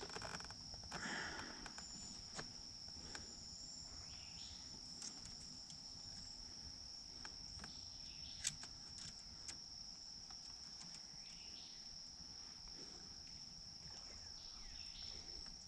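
Insects, such as crickets, droning in one steady, unbroken high-pitched tone, faint overall, with a few scattered faint clicks and knocks.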